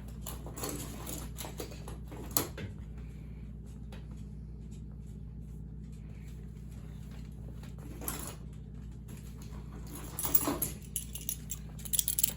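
Handling noises from work on a kerosene heater's metal wick holder: rustling and scraping, a sharp click about two seconds in, and a cluster of metallic clatters near the end, over a steady low hum.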